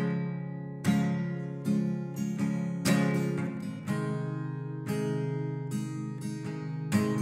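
Strummed acoustic guitar playing an instrumental passage of a slow song, with a fresh chord strum about once a second and no singing.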